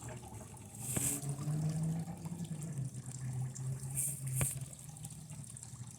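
Circuit board burning and arcing under high current from a lead-acid battery, giving a fizzing, sizzling crackle with flares about one and four seconds in and a sharp snap soon after the second. A low steady hum runs underneath.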